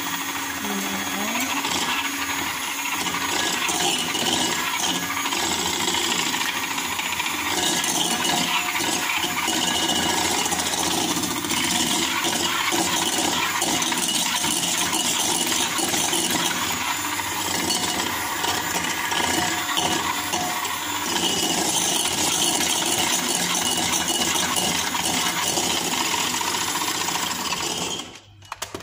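Electric hand mixer running steadily, its wire beaters whipping egg and oil into mayonnaise in a ceramic bowl. It switches off about a second before the end.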